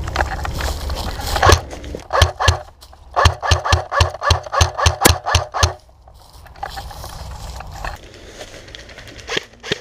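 Airsoft guns firing a run of single sharp shots, about three a second, with a low rumble of wind on the microphone before and after.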